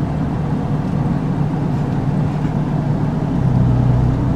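Steady drone of a car's engine and road noise heard from inside the cabin, the engine note dropping a little about three seconds in.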